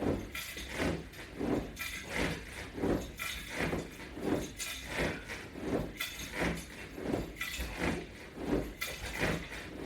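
Resistance-band exercise gear (band hooks, clips and chain) clinking and rubbing in a quick, even rhythm of about three a second as crunches are pumped out against the bands.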